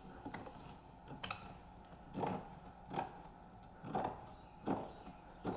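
Large scissors snipping through window screen mesh, trimming the excess along the frame: a series of about seven crisp cuts, roughly one a second, the louder ones from about two seconds in.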